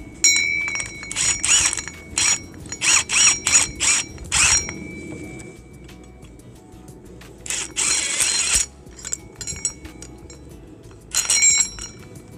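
Half-inch cordless impact wrench running a nut down a leveling foot's threaded rod and rattling it tight. It goes in several quick trigger bursts, then a longer burst and a final short one. A high metallic ring from the steel parts lingers between bursts.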